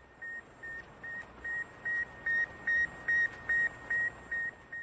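Sputnik 1's radio beacon as heard on a receiver: a steady train of short, high beeps at one pitch, about two and a half a second, over a hiss of radio static.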